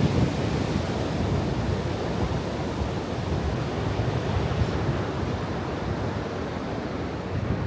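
Steady rushing noise of ocean surf, with wind buffeting the microphone.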